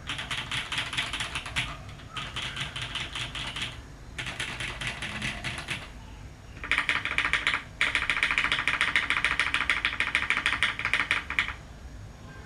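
Custom aluminium-plate, top-mount TKL mechanical keyboard with lubed and filmed Cherry MX Black linear switches and PBT keycaps, typed on fast in several bursts with short pauses between. The last burst, near the end, is the longest and loudest.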